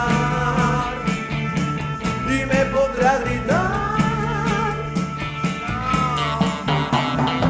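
Spanish-language rock song: a singer holds a long wavering note from about halfway through, over bass notes and a steady beat.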